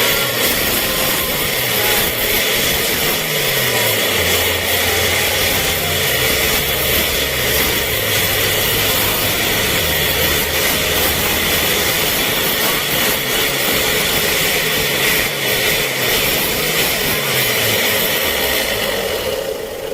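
Mitsubishi L300 diesel engine revved hard and held at high revs through a noisy muffler. The driver is running it flat out to clear the smoke after an anti-smoke oil additive has gone in. The revs come down near the end.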